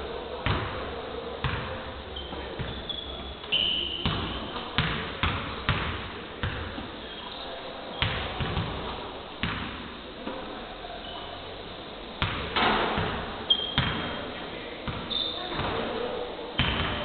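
Basketballs bouncing on a wooden gym floor: irregular thuds about once or twice a second, with short high squeaks now and then.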